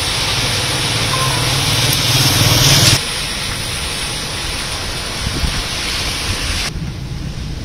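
Heavy rain on a wet road with car traffic: a steady hiss of rain and tyre spray, with a low engine hum that builds for about three seconds and then cuts off abruptly. The hiss loses its upper range suddenly near the end.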